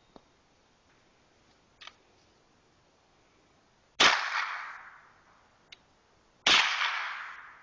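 Two shots from a .22 LR semi-automatic rifle, about two and a half seconds apart, each followed by an echo that dies away over about a second. A few light clicks come before and between them.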